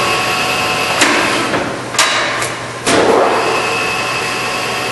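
Hwacheon HL-460 engine lathe running with a steady gear whine, broken by several sharp metallic clunks about a second apart as the headstock speed levers are shifted.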